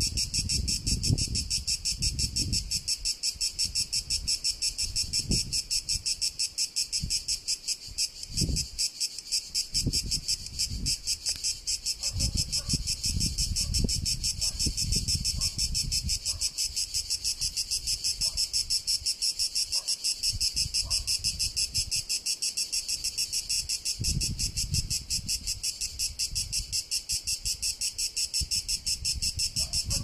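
Cicadas singing: a continuous high-pitched buzz made of rapid, even pulses that does not let up. Irregular low rumbling runs underneath.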